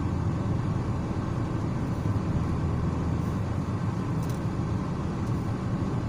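Steady low rumble of a moving car's engine and tyres on the road, heard from inside the cabin.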